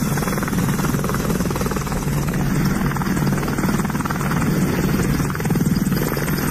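Military helicopter running close by: a steady, rapid chop of the rotor blades over the engine noise.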